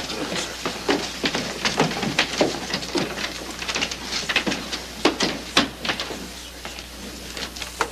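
Footsteps and shuffling of several people moving about and leaving, with irregular knocks and scuffs at uneven intervals.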